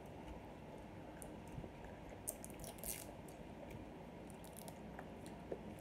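Faint crinkling of a plastic candy wrapper being handled, a few short crackles, the clearest a little after two and a half seconds in.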